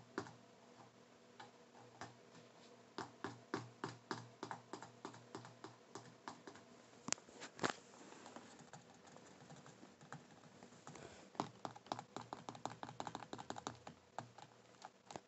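Faint, irregular light clicks and taps from hands handling things, with two sharper clicks about halfway through and a quicker run of light ticks in the last few seconds.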